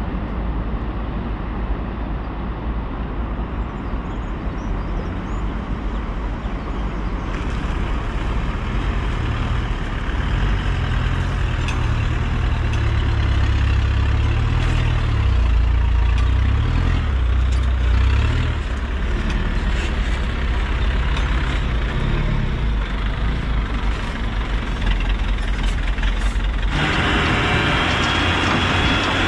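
Diesel engine of a loaded Mercedes-Benz tipper truck running with a steady low rumble, rising for several seconds about halfway through. Near the end a brighter rushing hiss comes in over it.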